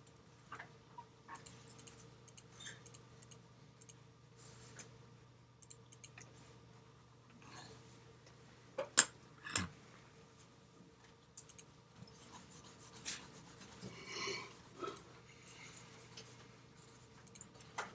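Graphite pencil scratching and rubbing on paper in short, faint, irregular strokes of shading, with a couple of sharper clicks about nine seconds in.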